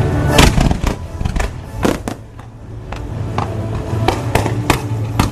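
Fireworks show: a string of firework bursts cracking and booming, roughly one every half second, over loud show music.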